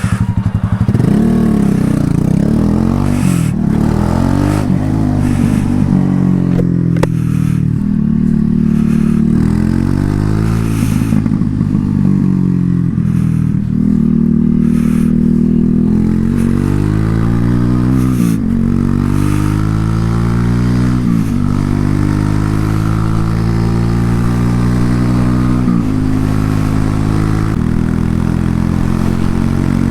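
Loncin LX250-12C motorcycle exhaust under way. The engine pitch climbs and then drops sharply at each of several gear changes, and it settles into steadier running near the end.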